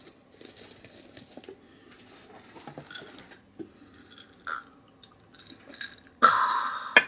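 Quiet eating and drinking sounds: a plastic water bottle handled, sips from a glass and chewing, with small clicks. Near the end comes a loud breathy noise lasting under a second.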